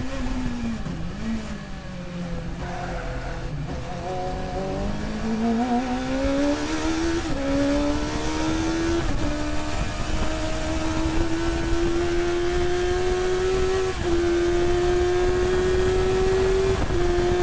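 Bike-engined sports-racing car's motorcycle engine, heard from the cockpit on a flying lap. The engine note drops as the car brakes for a corner, then climbs steadily under full throttle, dipping briefly at each of four upshifts.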